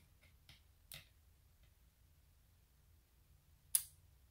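Faint clicks and taps of hard black rings and small disk magnets being turned in the hands, with one sharp, louder click near the end.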